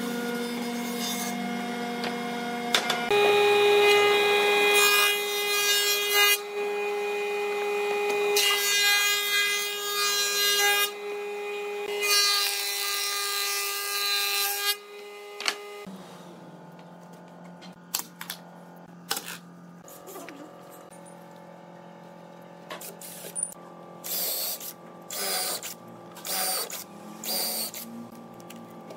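Stationary woodworking machinery: a machine hum, then a louder machine running steadily with several noisy passes as boards are fed through, the last of them a table saw ripping a board. It stops about halfway. After that come handling clicks over a low shop hum, and near the end a few short whirring runs of a cordless drill.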